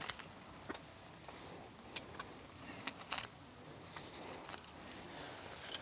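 Scattered small clicks and rustles of hands handling a small caught fish and its tackle while working out a hook the fish has swallowed.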